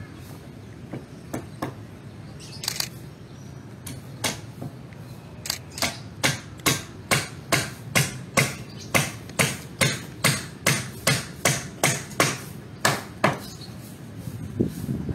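Hammer blows on the wooden roof edge of a house: a few scattered knocks, then a steady run of about two to three sharp strikes a second that stops shortly before the end.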